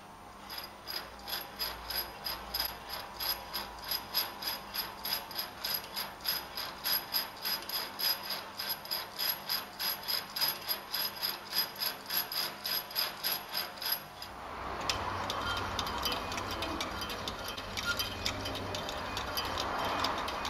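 Hand-cranked bent-wire automaton, its steel-wire crank turning in screw-post bearings, clicking in a quick regular rhythm of about three or four clicks a second. About two thirds through the clicking gives way to a fainter ticking over a steady hiss.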